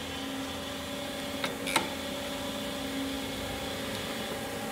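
TOS BPH 300 hydraulic surface grinder running with a steady hum. About one and a half seconds in come two sharp clicks in quick succession as the table's reversing stop is struck and the cross feed steps on.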